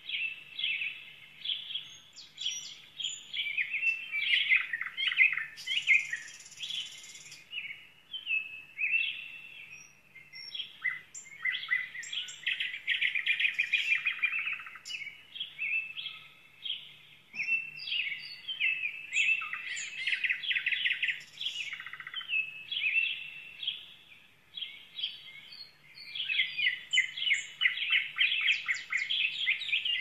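Songbirds singing and chirping: several birds' rapid trills and short high notes overlapping, thinning briefly now and then.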